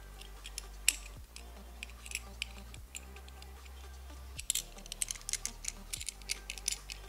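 Small metal puzzle lock and key clicking and rattling as they are handled and tried, scattered at first and then a busy run of clicks in the second half.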